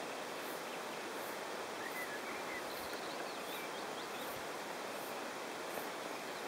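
Steady wind and water noise, with a few faint, short bird chirps between about two and four seconds in.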